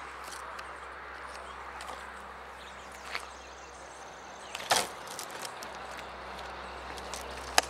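Steady outdoor background noise broken by three short, sharp knocks, the loudest about halfway through and another just before the end.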